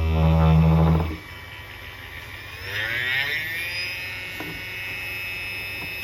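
A loud low hum that cuts off about a second in. Then a small electric motor spins up, its whine rising in pitch and then holding steady and high, as a brushless drill motor does when run up to speed.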